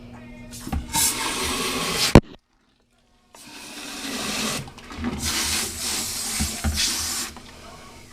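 Water running and splashing in three spells, as when rinsing out a fouled seawater strainer or filter housing. A sharp knock comes about two seconds in, and a second-long dead gap follows it.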